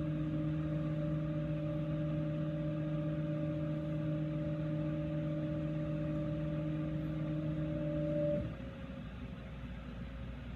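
CNC mill's axis motors driving the machine to its origin, a steady pitched whine that cuts off suddenly about eight and a half seconds in as the move ends, leaving a lower steady machine hum.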